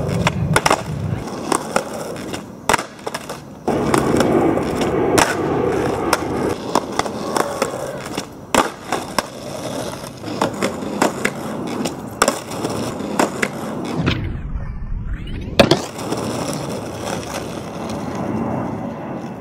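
Skateboard rolling on asphalt, the wheels rumbling steadily, with many sharp clacks of the board popping for tricks and the deck and wheels slapping down on landing.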